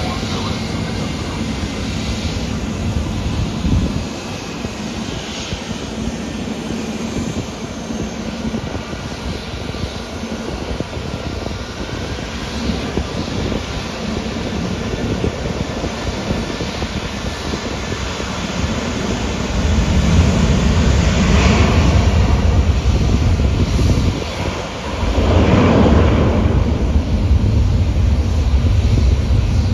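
Jet airliner engines running as the planes taxi, a steady roar of engine noise that gets louder about two-thirds of the way through, with two brief surges near the end.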